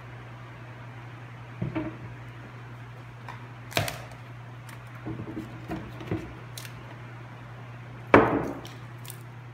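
Hard knocks and clunks of ice jugs and a rack being set into a plastic ice chest, several separate thuds with the loudest about eight seconds in, over a steady low hum.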